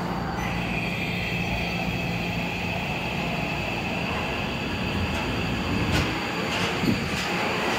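A Tokyo Metro Marunouchi Line 2000-series subway train pulls out of the station and picks up speed past the platform, its motors and wheels running. A steady high tone sounds through the first half, and a few sharp ticks come near the end.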